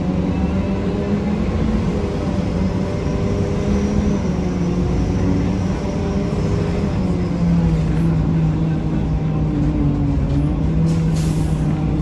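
1993 Gillig Phantom 35-foot transit bus heard from inside, its Cummins ISM diesel running steadily with the loud grinding that the uploader suspects comes from the Allison B400R transmission; the engine note drops a little about halfway through. A short air hiss from the air brakes near the end.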